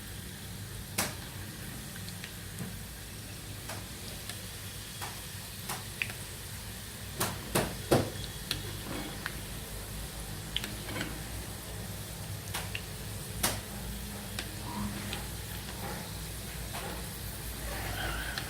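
Chopped garlic frying in hot mustard oil in a kadhai, a steady sizzle with a few sharp clicks scattered through it; the garlic is being fried until golden brown for a mustard-oil home remedy.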